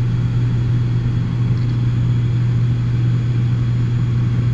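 The ATR 72's twin turboprop engines and propellers drone steadily at takeoff power during the initial climb, heard inside the cockpit as a strong, even low hum with rushing noise over it.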